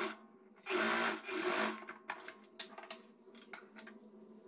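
Sewing machine stitching a blouse's shoulder seam in three short runs over the first couple of seconds, followed by a few light clicks and taps.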